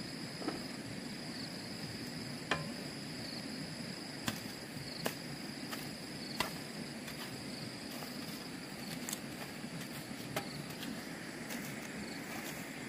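Insects droning with a steady high-pitched buzz that fades out about seven seconds in. Sharp clicks or knocks come every second or so over a low, even background hiss.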